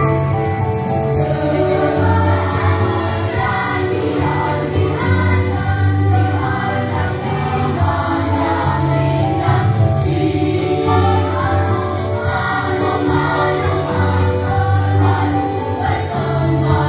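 Elementary school children's choir singing together over an instrumental accompaniment with a steady bass line, the voices coming in about two seconds in.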